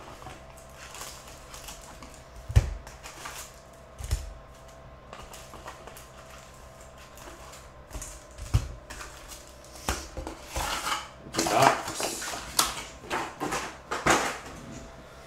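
Foil-wrapped trading card packs being pulled out of a cardboard hobby box and set down in stacks: crinkling wrappers and knocks of cardboard. There is a sharp knock about two and a half seconds in, and the rustling grows busier over the last few seconds.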